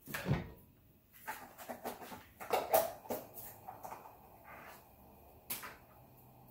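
Kitchen clatter of cookware being handled: a pot lid and ladle knocking against a pot, followed by a run of irregular knocks, the loudest about the middle, and a sharp click near the end.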